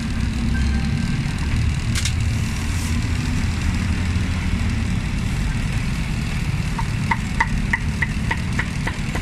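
Steady low rumble of street traffic, with a vehicle engine running. Near the end comes a quick run of about eight even ticks, roughly three a second.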